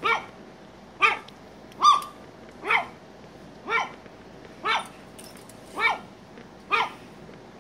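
Dog barking repeatedly, eight sharp barks at about one a second.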